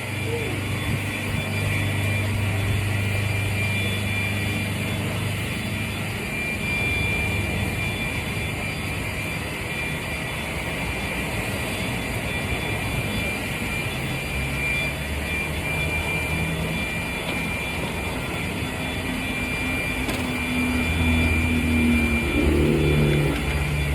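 Honda walk-behind lawn mower's small engine running steadily while shredding leaves, with a steady high whine over it; the engine note shifts in the last few seconds.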